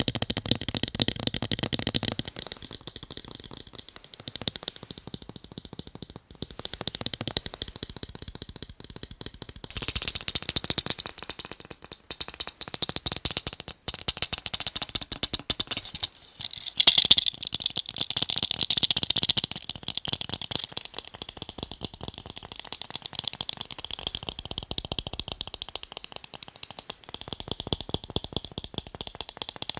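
Fast fingernail tapping on a pair of glasses, a dense run of rapid light clicks that come in bouts of a few seconds and shift in tone from bout to bout, loudest about 17 seconds in.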